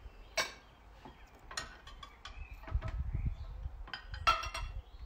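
Kitchenware clattering as pots, lids and utensils are moved about and set down on a wooden worktable: a handful of sharp knocks, the loudest about four seconds in with a brief ring.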